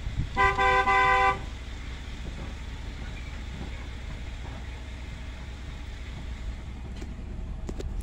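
Ford Super Duty pickup's horn blown in one steady blast of about a second near the start, the signal that calls cattle in to be fed. After it, the truck's low steady running rumble over rough ground, with a few faint clicks near the end.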